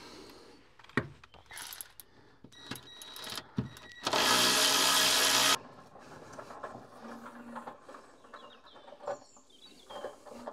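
A power tool runs in one steady burst of about a second and a half, a few seconds in, undoing the fastening of the earth strap on a Renault Zoe's traction battery. Small clicks and knocks of tool handling come before and after it.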